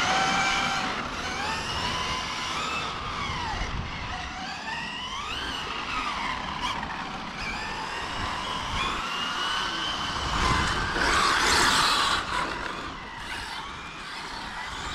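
Electric RC cars' brushless motors whining, the pitch rising and falling over and over as they accelerate and brake, over the crunch of tyres on loose gravel. A louder burst of tyres sliding and scrabbling on the stones comes about eleven seconds in.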